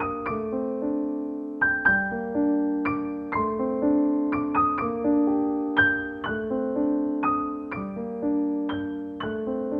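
Background piano music: a slow tune of single notes and chords, each struck and left to ring and fade.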